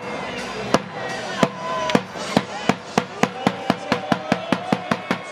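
Hand claps in a steadily accelerating rhythm, a crowd slow clap building up. The first claps come well over half a second apart, and by the end they come about five a second.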